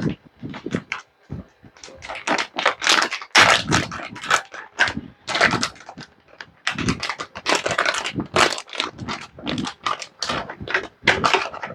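Crinkling and rustling of plastic packaging, with small clicks and taps, as parts are unwrapped from their bags.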